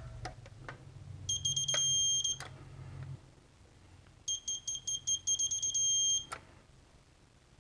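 Digital torque angle wrench beeping as cylinder head bolts are tightened to 40 newton metres: twice, a run of quick high beeps runs into a held tone, the signal that the set torque has been reached. The first comes about a second in, the second from about four seconds in to just past six. A few light clicks of the socket on the bolt come in the first couple of seconds.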